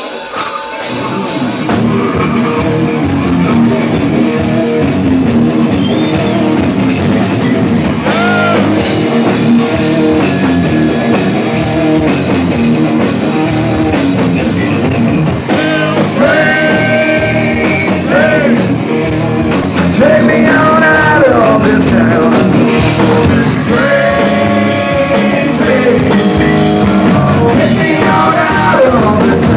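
Live rock band playing loud with electric guitars, bass and drums, heard from within the club crowd. The band swells up over the first couple of seconds, and a lead singer comes in with vocals over it.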